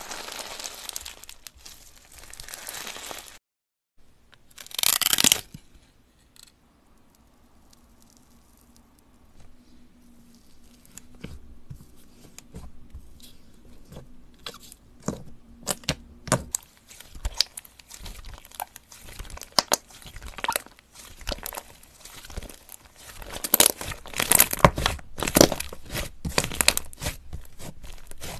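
Hands kneading and squeezing slime. First comes a dense crunchy crackling from a slime packed with small metallic tube beads. After a short gap there is one loud burst, then a run of sharp sticky pops and clicks as soft, smooth slime is stretched and pressed, busiest and loudest in the last few seconds.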